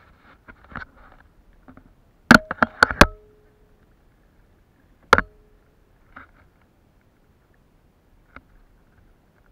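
Hard knocks against a plastic kayak close to the microphone: four in quick succession about two seconds in and one more about five seconds in, a couple with a short hollow ring, then a few faint taps.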